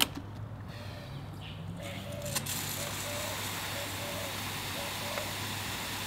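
Plastic quick-connect hose fitting clicking onto a brass outdoor garden tap, with a few handling clicks; about two and a half seconds in, water starts hissing steadily through the tap and hose as it is turned on.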